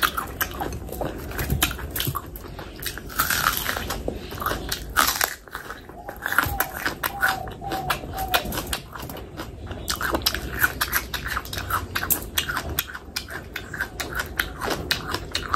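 Close-miked chewing of food: rapid, irregular wet mouth smacks and clicks, with a couple of breathy stretches in the first third.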